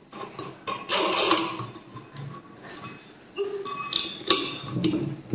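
Irregular metallic clicks and scraping as a grinding disc is seated on the arbor of a gemstone cutting and grinding machine and its centre nut is turned on by hand, with a sharp click about four seconds in.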